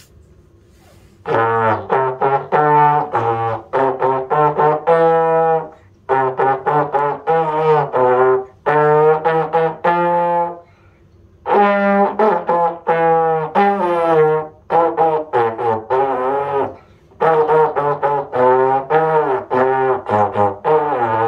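Trombone practice: a student plays short, separate notes in phrases of a few seconds, with brief pauses between the phrases.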